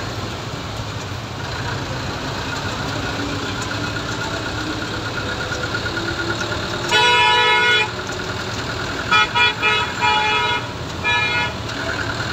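Vehicle horn in street traffic: one long blast about seven seconds in, then a run of short toots a couple of seconds later, over the steady running of engines and road noise.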